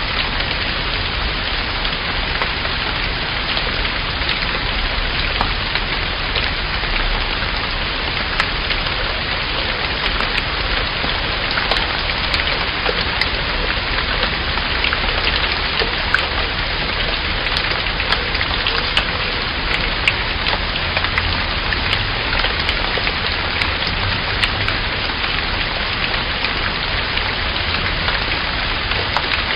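Steady rain falling, with a dense patter of individual drops ticking on a surface.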